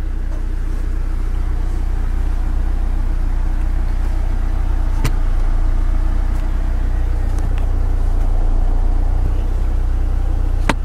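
Steady low rumble around a parked vehicle's cabin, with a sharp click about five seconds in and another near the end as a center-console storage compartment is opened and handled.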